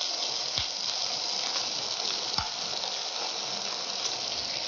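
Egg and tomato omelette mixture sizzling as it is ladled into tomato rings frying in hot oil in a pan: a steady hiss, with two light knocks about half a second and two and a half seconds in.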